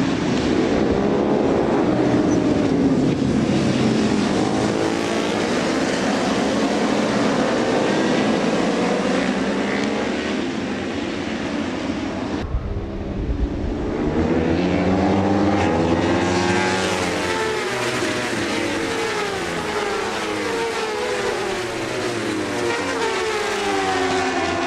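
Racing motorcycle engines running at high revs, their pitch rising and falling. The sound breaks off abruptly about halfway and starts again with the same rising and falling engine notes.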